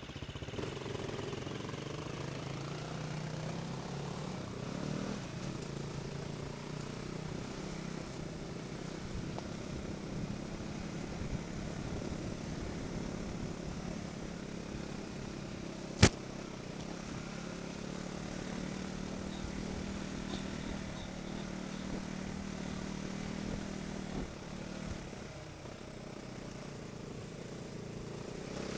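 Off-road trail motorcycle engine running steadily at a slow riding pace along a dirt track. One sharp knock cuts through about halfway.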